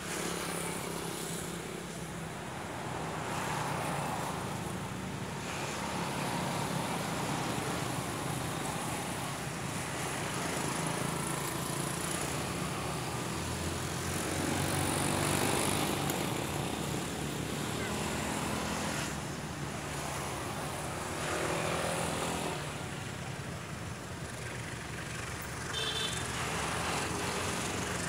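Double-headed CC201 and BB303 diesel locomotives running as the train approaches from a distance: a steady low engine drone.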